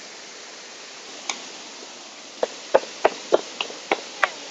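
Wooden spoon knocking against a metal pot while mashing and mixing boiled tapioca: one knock about a second in, then from about halfway a run of sharp knocks, about three a second. A steady rush of flowing stream water runs beneath.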